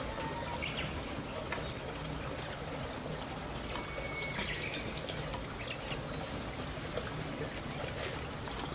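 Steady outdoor background hiss with a few short, rising bird chirps about halfway through.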